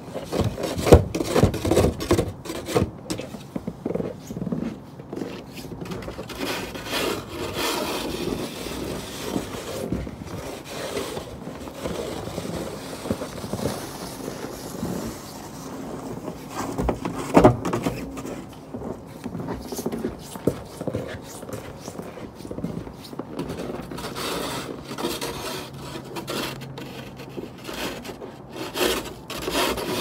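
Snow shovel pushed across a snow-covered wooden deck, its blade scraping over the boards in irregular, repeated strokes.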